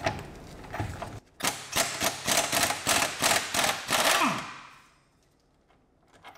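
Cordless impact wrench hammering a 21 mm brake caliper bracket bolt loose, a quick run of rattling impacts for about three seconds, then the motor winds down and stops.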